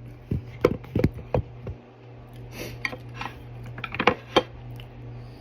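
Tableware being handled: a run of sharp clicks and knocks in the first couple of seconds and another pair about four seconds in, over a steady low hum.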